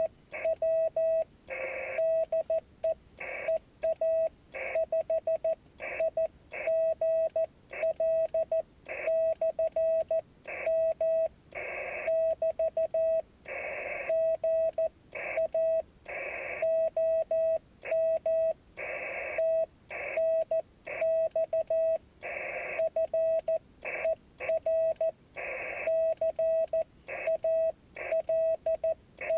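Morse code (CW) from a Yaesu FT-817D ham radio transceiver: a single steady tone of about 650 Hz keyed on and off in dots and dashes, with short breaks between characters and words. A burst of hiss comes with some of the longer tones.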